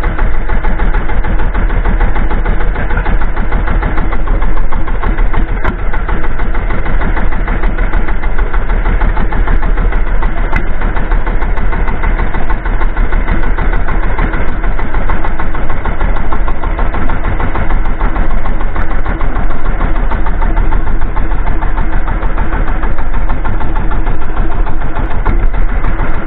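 Small fishing boat's engine idling, loud and steady.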